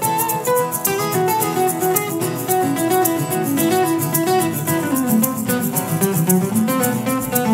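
Acoustic guitar playing an instrumental break, a picked melody line moving over strummed chords, with a shaker keeping a steady fast rhythm.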